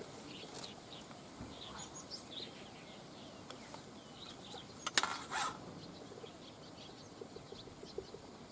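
Faint outdoor background with small birds chirping here and there, and a single sharp click about five seconds in.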